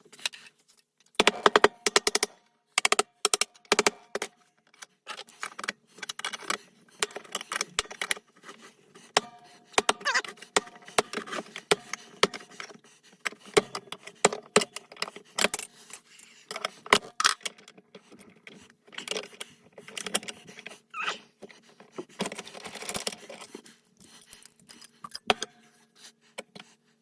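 Metal parts and hand tools clinking and scraping at irregular intervals as a 231J transfer case is taken apart, with many sharp clinks and a few short scrapes.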